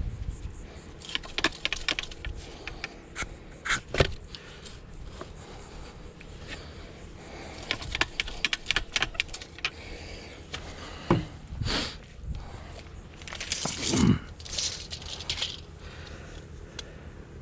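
Manual post hole digger stabbing and scraping into gritty soil, with irregular metallic scrapes and crunches and a few heavier knocks as the hole is deepened.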